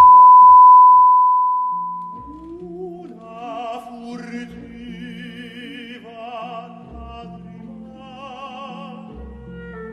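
A loud, steady electronic beep fades out over the first two seconds or so. It gives way to operatic singing with a strong vibrato over orchestral backing music.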